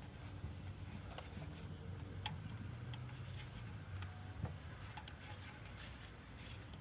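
Faint, scattered clicks and light knocks of spark plug wire boots and coils being handled and pushed on in an engine bay, over a low steady hum.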